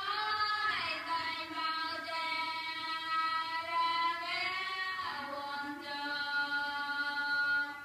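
A single voice singing a long drawn-out phrase in held notes, dropping to a lower held note about five seconds in.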